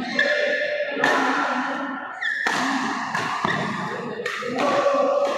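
Badminton rackets striking a shuttlecock in a fast doubles rally, about one sharp hit a second, each echoing in a large hall.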